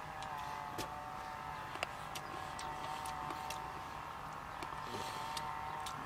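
Steady faint mechanical drone holding several even tones, with a few soft clicks scattered through it.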